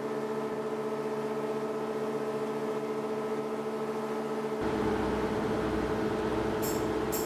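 A steady mechanical hum made of many held tones, joined about halfway through by a low rumble. Near the end, high clicks come about twice a second.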